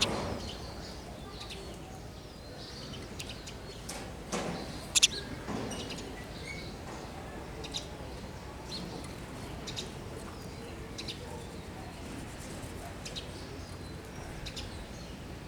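Sparrows chirping in short, scattered calls, with two sharp clicks about five seconds in.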